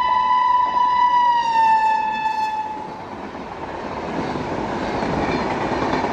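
Indian Railways WAG-9 electric locomotive's horn blowing a long steady note that drops in pitch as the locomotive passes, then dies away about three seconds in. A passing train's running noise follows and grows louder: wheels and coaches rolling on the rails.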